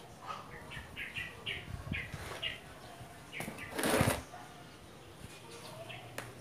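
Rustling of prayer plant leaves and a plastic pot being handled as a clump of the plant is lowered into the pot, in short scuffs, with one louder rustle about four seconds in and a sharp click near the end.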